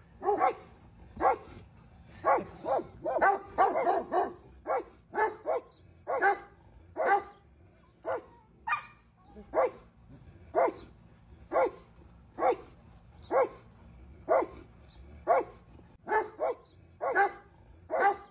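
Dog barking steadily, about one bark a second, with a quicker flurry of barks around three to four seconds in.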